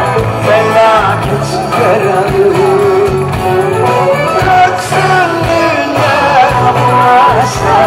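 Live pop band music heard from within a concert crowd: an ornamented lead melody over a steady bass line and drums.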